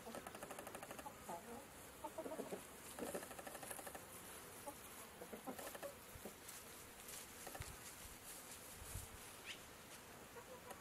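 Chickens clucking quietly in a farmyard: a scattering of short, low clucks, most of them in the first several seconds.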